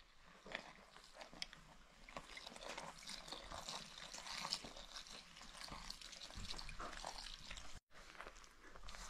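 A hand mixing flour in a large enamel basin while liquid is poured in from a jug, then squeezing the wet, shaggy dough: a faint, dense crackle of small ticks and trickling, with a brief dropout near the end.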